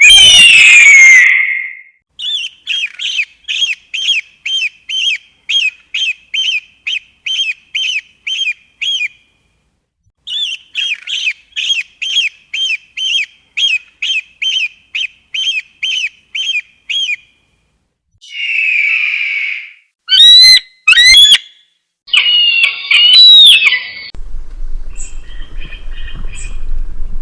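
Bird-of-prey calls from an eagle sound-effect recording. It opens with a long descending scream. Two long runs of rapid, repeated high piping calls follow at about two a second, then a few short, sharp cries. A low rumble sits under the last few seconds.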